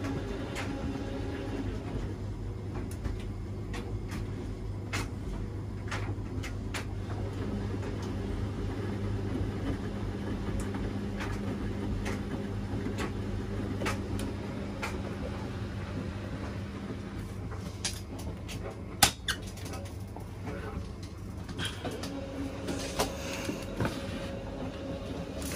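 Washing machine running mid-cycle: a steady low motor hum with scattered light clicks and knocks as the drum turns, and one sharper knock about 19 seconds in.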